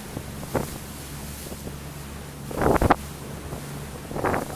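Motor yacht underway at speed: a steady low engine drone under wind rushing across the microphone, with two louder gusts of rushing noise about two and a half and four seconds in.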